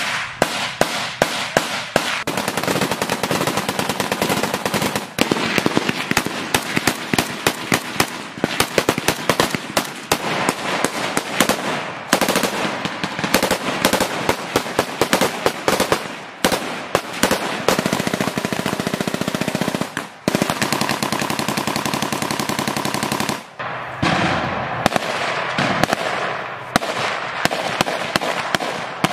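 Bursts of automatic gunfire in a firefight: rapid strings of loud shots, nearly continuous, with brief pauses between bursts.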